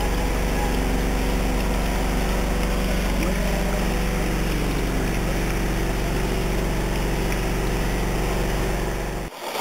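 A steady, low, engine-like hum with a hiss over it. It cuts off suddenly just before the end.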